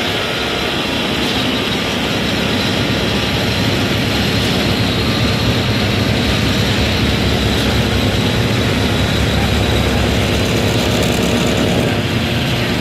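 Engine-driven concrete machinery running steadily: a constant, unbroken mechanical noise.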